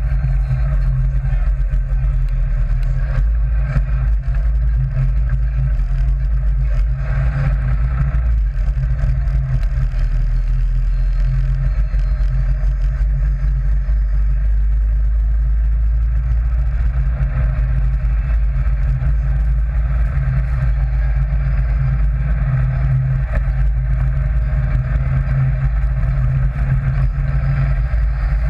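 Sand rail (dune buggy) engine running steadily while the buggy drives along, a loud, mostly low-pitched sound with no pauses.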